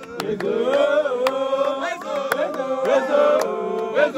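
A group of men singing a religious chant together, holding and sliding between notes in harmony, with scattered hand claps.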